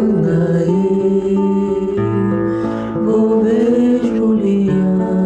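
Brazilian song: acoustic guitar playing plucked chords under a singing voice that holds long notes, one of them wavering about three seconds in.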